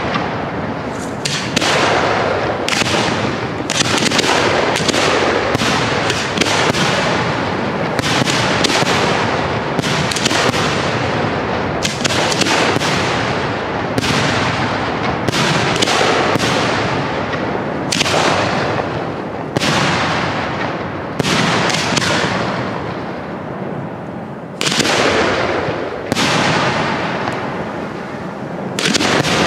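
Display-grade (1.3G) aerial firework shells bursting in quick succession: a dense run of loud bangs overlapping with their echoes, thinning to a few separate bangs near the end.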